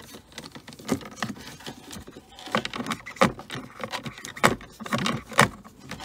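Irregular light metallic clicks and clinks of small hand tools and parts being worked on a car's dashboard switch and trim, about a dozen in all, the sharpest between three and five and a half seconds in.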